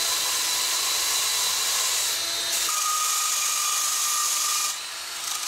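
Cordless drill spinning an abrasive attachment against a steel exhaust header pipe, cleaning the metal ready for welding. A steady grinding whir whose pitch steps up slightly about halfway through, dipping a little near the end.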